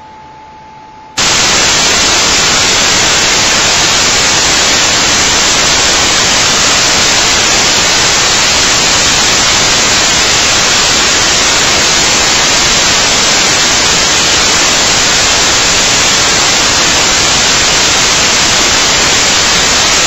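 Loud, steady static hiss like white noise that cuts in abruptly about a second in and covers any handling sounds; before it, only a faint steady hum.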